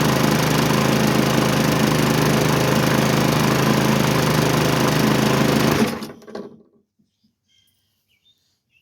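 Briggs & Stratton single-cylinder push-mower engine running steadily. About six seconds in it cuts off and winds down quickly to quiet.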